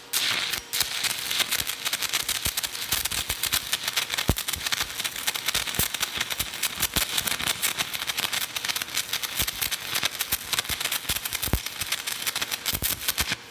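Stick welding arc running a bead with a 7018 electrode at 120 amps: a steady, dense crackling that cuts off sharply at the end.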